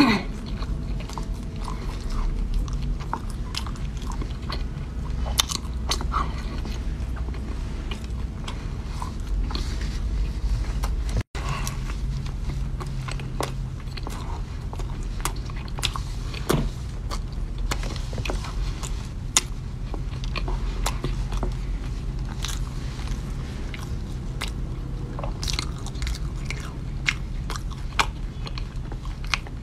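Close-up eating sounds: a person biting into and chewing a soft dark pastry with a crumbly filling, with many small wet clicks and light crunches of the mouth over a steady low hum. The sound drops out for an instant about eleven seconds in.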